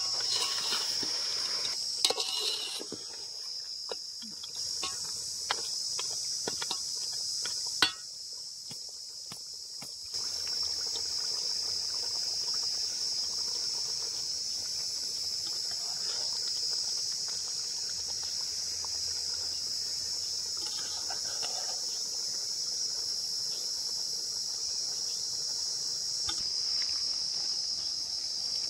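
Crickets chirping steadily in a high, unbroken trill, with a few sharp clinks and knocks of a ladle against a metal cooking pot in the first eight seconds.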